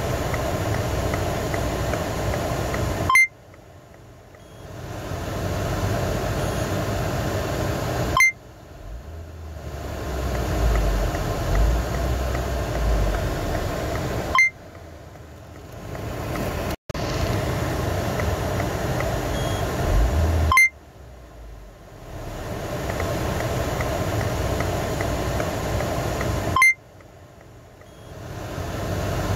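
A car engine running steadily, broken about every six seconds by a short sharp beep. After each beep the engine sound drops away for about a second, then builds back up.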